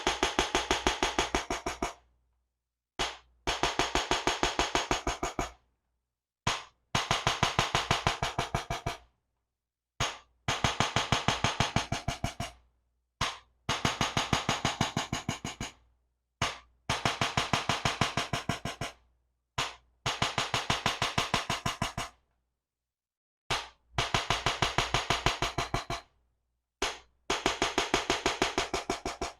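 Chiropractic activator adjusting gun firing against the neck in repeated rounds: each round opens with a single click, then a rapid, even train of clicks lasting two to three seconds, with a pause before the next round.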